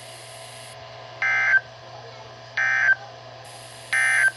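Emergency Alert System end-of-message (EOM) data bursts: three short, equal, buzzy digital bursts about a second and a third apart, signalling the end of the tornado warning. A steady low hum runs underneath.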